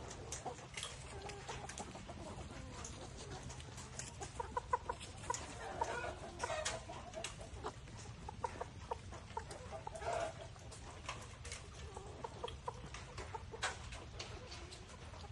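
Chickens clucking, many short calls from several birds, with a few sharp clicks mixed in over a steady low rumble.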